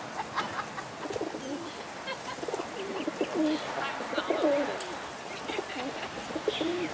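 A feeding flock of feral rock pigeons cooing, with many short coos overlapping one another throughout.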